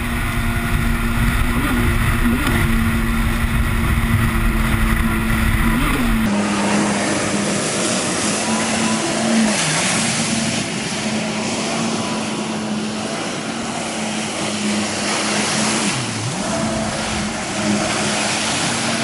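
2007 Kawasaki Ultra LX jet ski running at speed, its engine holding one steady pitch with a couple of brief dips, over the rush of water spray from the hull. For the first six seconds it is heard from on board, with heavy wind buffeting on the microphone. After that it is heard from off the craft as it passes.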